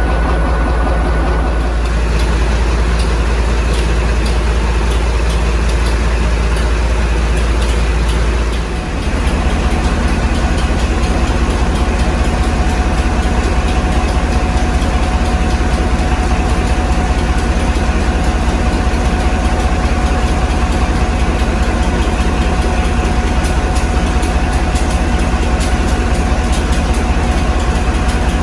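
Maybach MD870 V16 diesel engine of a freshly restored Hymek locomotive, idling steadily. About nine seconds in, the sound dips briefly and then carries on with a slightly different tone.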